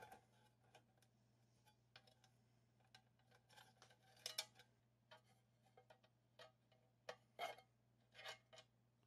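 Near silence with faint, scattered clicks and light rustling from hands handling wires, connectors and a conduit fitting in a small sheet-metal fan enclosure, the clearest clicks about four seconds in and again about seven seconds in, over a steady low hum.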